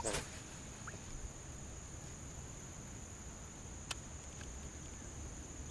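Quiet ambience: a faint, steady, high-pitched insect drone over a low rumble, with one sharp click about four seconds in.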